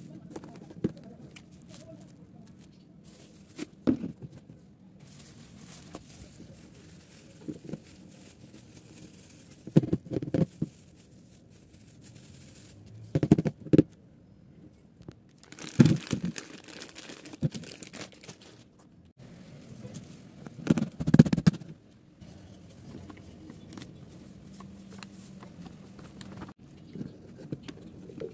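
Plastic packets crinkling and plastic tubs and a jar knocking while dry foods are handled and packed away, in short bursts every few seconds.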